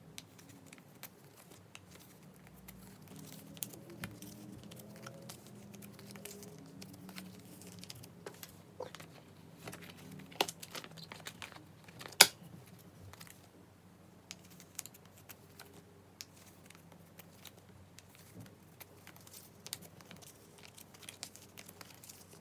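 Plastic photocard binder sleeves crinkling and cards tapping and sliding into the pockets, with scattered sharp clicks; the loudest snap comes about twelve seconds in.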